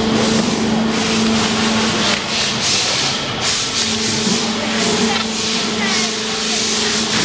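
Small electric motor humming steadily as it spins a socket on its shaft, while black plastic cabinet legs are pressed onto it by hand, giving a rasping, rubbing noise that swells and eases every second or so.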